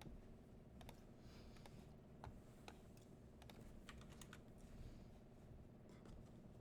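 Faint, irregular clicks of typing on a computer keyboard over a low steady hum.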